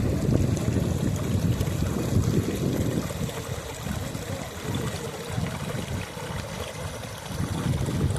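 River water flowing, with wind rumbling on the microphone; the rumble eases off for a few seconds in the middle.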